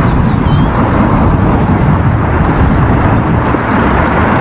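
Red London double-decker bus driving past in road traffic: a loud, steady low rumble of engine and tyre noise.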